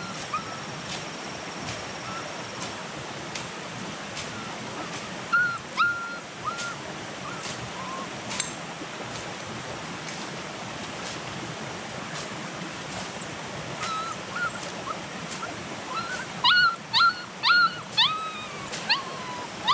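A puppy whimpering in short, high yelps: a few about five to six seconds in, then a quick run of them near the end, over a steady background hiss.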